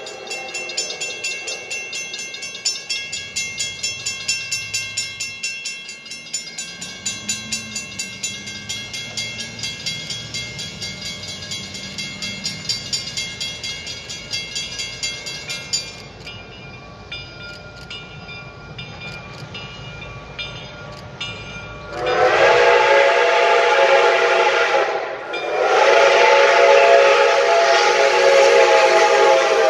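The six-chime steam whistle of Reading & Northern No. 425, a Baldwin 4-6-2 Pacific steam locomotive, sounds two long blasts as the train approaches. Before the blasts, a steady ringing of about two strokes a second runs through the first half and then fades lower.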